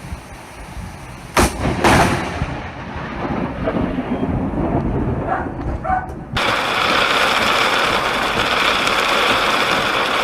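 A close lightning strike: a sharp thunder crack about a second and a half in, a second crack just after, then rumbling that dies away. About six seconds in, the sound cuts suddenly to a steady loud hiss of noise.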